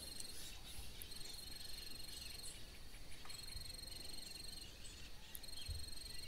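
Insect chirring in a steady high buzz of rapid, even pulses, coming in trains about one to two seconds long with short gaps between them.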